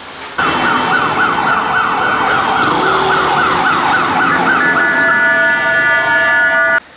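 Emergency vehicle siren, loud, sounding in fast rising sweeps about three a second, then switching to a steady blaring tone about two seconds before it cuts off abruptly.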